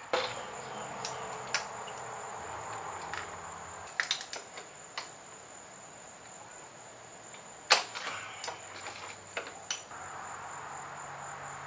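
Scattered metal clinks and clicks of socket tools being handled, with crickets chirping steadily in the background.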